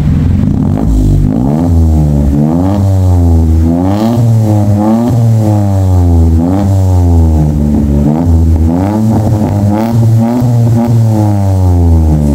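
Daihatsu Ayla 1.2's four-cylinder engine revved up and let back down again and again through a newly fitted stainless aftermarket exhaust, with a trial muffler held at the tailpipe for a sound test. The note is deep and bassy.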